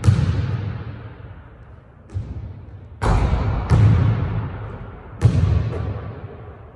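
A basketball bouncing on a hardwood gym court: about five loud, irregularly spaced thuds, with a weaker one about two seconds in. Each thud is followed by a long echo in the big hall.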